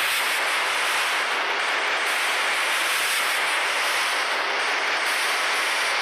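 A loud, steady hiss of static-like noise, even throughout, with no tone or rhythm in it.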